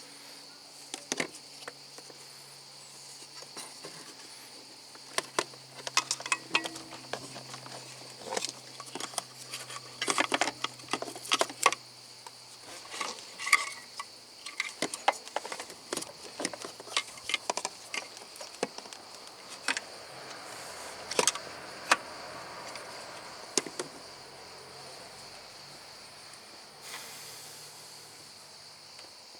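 Irregular sharp clicks and taps of hand tools and car parts being handled during an engine computer replacement, over a steady high-pitched insect drone.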